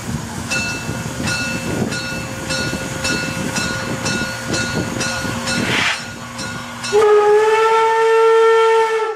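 Steam whistle of the class 50 steam locomotive 50 3552-2 blown in one long, loud blast starting about seven seconds in. Before it, a regular metallic ticking about every 0.6 seconds and steam hissing from the locomotive.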